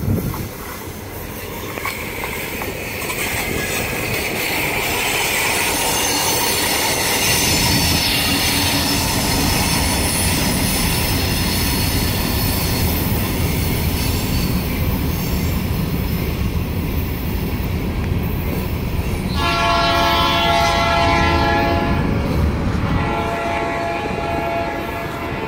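Kansas City Southern diesel freight train approaching and rolling past, its rumble and wheel clatter on the rails building over the first several seconds and then holding loud. About three-quarters of the way through, the locomotive's air horn sounds one long blast, and a second, weaker blast begins near the end.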